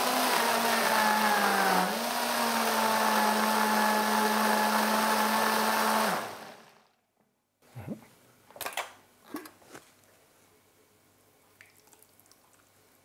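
High-speed countertop blender running, blending fruit. Its motor pitch rises at the start, dips briefly about two seconds in, then holds steady until the motor spins down and stops about six seconds in. A few short knocks follow as the blender jug and its lid are handled.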